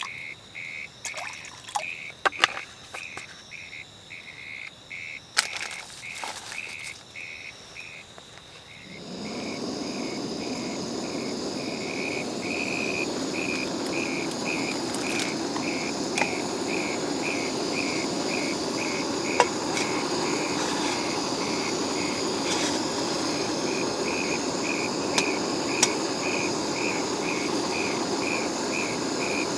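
Rhythmic high chirping from a calling insect, about two pulses a second and unbroken throughout, with a few sharp clicks early on. About nine seconds in, a loud steady rushing hiss starts suddenly and becomes the loudest sound.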